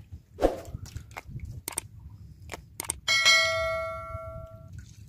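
A single bell-like ding about three seconds in, ringing out for about a second and a half: a subscribe-button notification sound effect. Before it come a few small clicks and knocks of hands handling the catch and line.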